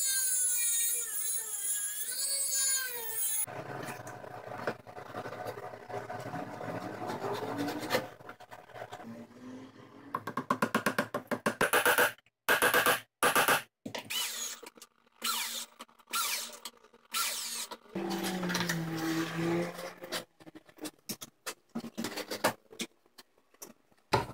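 Handheld rotary tool with a small cutoff wheel running with a wavering high whine for the first few seconds, followed by a run of separate workshop tool noises: a steadier stretch, then a series of short, sharp bursts, and a brief low hum near the end.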